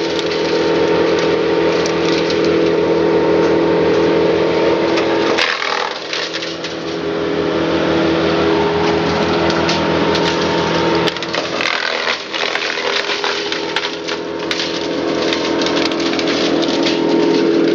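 Timberwolf TW150 disc chipper running under load as limbs and brash are fed in, with a steady engine note and constant cracking and splintering of wood being chipped. The engine's tone changes twice, about a third and two-thirds of the way through.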